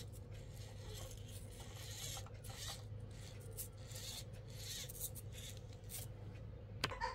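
Small-scale RC rock crawler clambering over terrain: irregular scraping and crunching of its tires and chassis, over a steady low hum. There is a sharper knock near the end.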